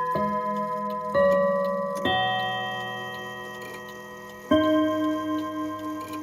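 Ansonia mantel clock's chime rods struck by its hammers: four notes of different pitch, each ringing on and dying away, over the steady ticking of the movement. The owner is unsure whether the chime sounds right or whether something is wrong with it.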